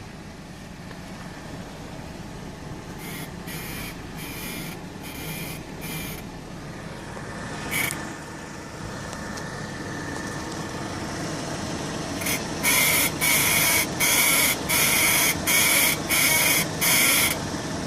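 Defective lower control arm in an Audi A4 B6's four-link front suspension squeaking as the suspension moves: short high squeaks in a steady rhythm, about one and a half a second. There is a first run of five, a single squeak, and then a longer, louder run of about eight near the end.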